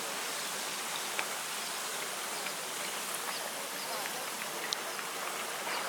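Thawing lake ice crystals washing against the shore and jostling together: a continuous fine tinkling crackle, with scattered sharper clinks standing out.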